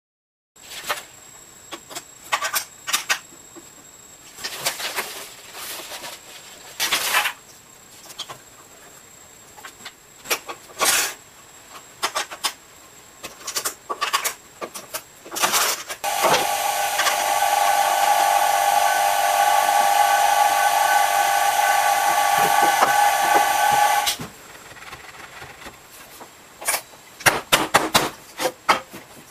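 Clicks and knocks of vacuum suction cups and a laminate panel being handled on the aluminium bed of a home-built CNC machine. About 16 s in, a loud steady hiss with a whistling tone starts, air rushing through the suction-cup vacuum system. It cuts off suddenly about eight seconds later, and the handling knocks resume.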